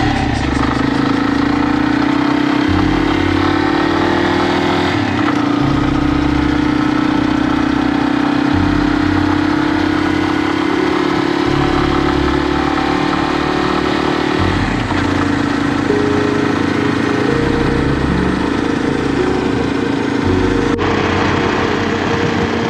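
Yamaha Serow 250's single-cylinder engine running under way, its pitch climbing slowly and then dropping sharply twice, about five seconds in and again about fifteen seconds in, as it shifts up a gear.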